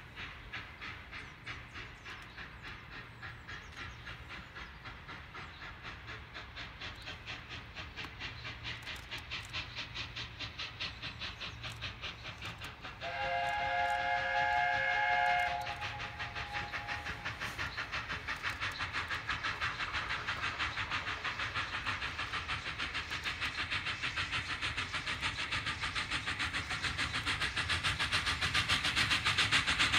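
LNER A4 Pacific 60009 Union of South Africa approaching under steam: a rapid, even exhaust beat that grows steadily louder. Just before halfway through, its chime whistle sounds for about two and a half seconds, several notes at once.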